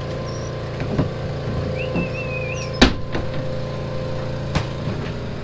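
Steady hum of the shed's shearing machinery running, with scattered knocks and clacks; the loudest is one sharp knock about three seconds in. A short wavering squeak comes just before it.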